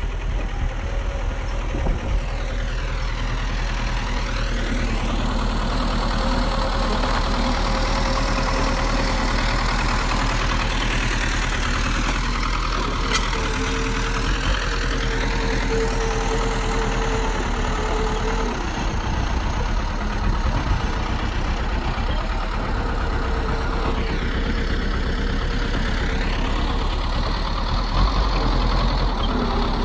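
Bulldozer's heavy diesel engine running steadily with a deep rumble and a steady whine, with no let-up. The tone of its noise swoops down and back up three times as it works.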